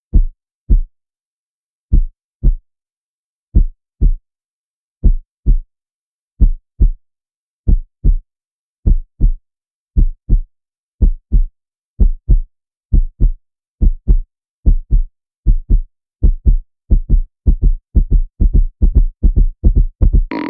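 Heartbeat sound effect: pairs of low thumps, lub-dub, about one pair every one and a half seconds at first, speeding up steadily until the beats come close together near the end.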